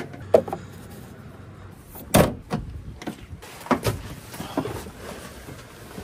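A series of knocks and clunks of gear being handled and loaded, with the loudest thud about two seconds in and a few more near the four-second mark.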